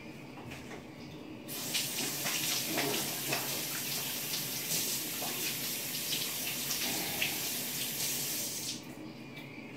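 Kitchen sink faucet running as hands are washed under the stream, with irregular splashing. The water comes on abruptly about a second and a half in and is shut off near the end.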